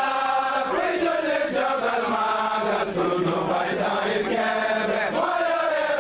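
A group of voices chanting a Sufi devotional chant in unison, without a break.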